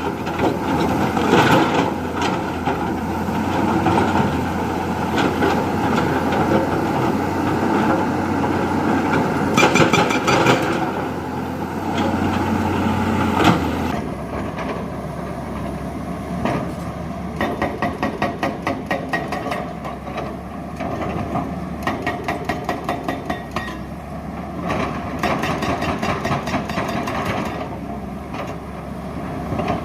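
Diesel engine of a JCB 3DX backhoe loader running steadily while it works. About halfway through the sound changes abruptly, and the engine is joined by several runs of rapid rattling knocks, about four a second.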